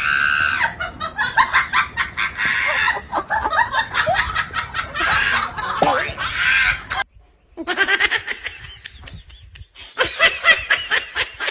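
People laughing in quick cackling bursts that repeat several times a second. The laughter breaks off briefly about seven seconds in, then starts again.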